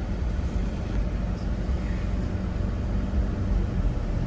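Vehicle driving, a steady low rumble of engine and road noise.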